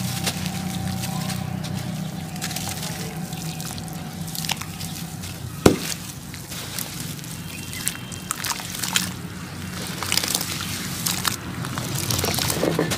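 Crumbly sand-cement lumps being squeezed and broken up by hand under water in a shallow pan, with sloshing, dripping and trickling water and scattered small crackles. One sharp click about halfway through is the loudest moment.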